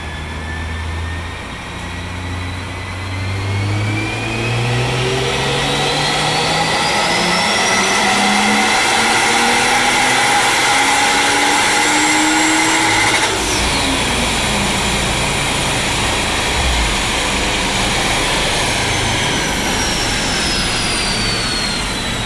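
Turbocharged 2JZ-GE straight-six in a Lexus IS300 making a full-throttle pull on a chassis dyno: the engine note rises steadily for about twelve seconds with a high whine climbing alongside it. Then the throttle shuts abruptly, the engine drops back, and the whine falls away slowly.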